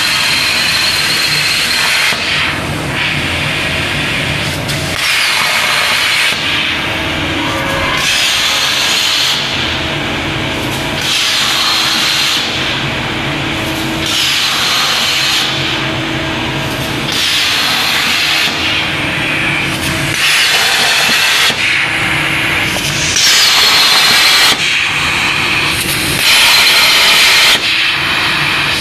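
Hypertherm HPR260XD plasma torch on a CNC profiling table cutting 3 mm steel plate: a loud, hissing arc that changes in tone every second or two as it works through a run of short cuts for holes and slots.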